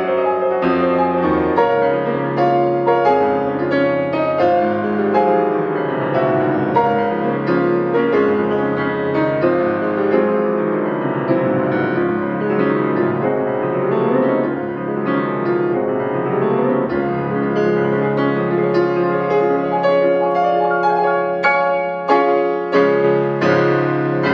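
Background piano music, a steady flow of notes.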